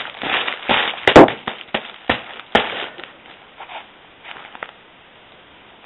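Irregular crackling, rustling and sharp clicks of handling noise, densest in the first three seconds and then dying away to a low hiss.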